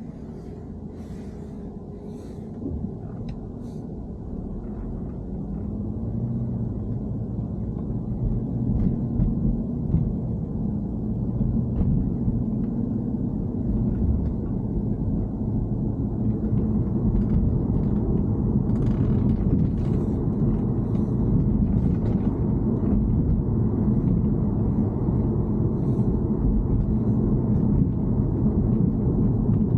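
Low, steady rumble and drone of a BMW E90 3 Series on the move, growing louder over the first half and then holding level. A few faint ticks show in the first few seconds.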